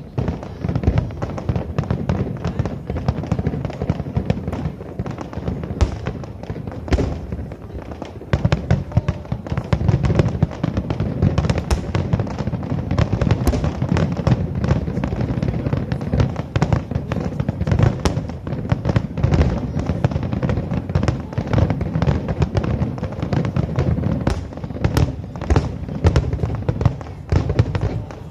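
Aerial fireworks display: shells bursting in rapid, overlapping succession, a dense run of booms and sharp cracks over a continuous low rumble, with no pauses.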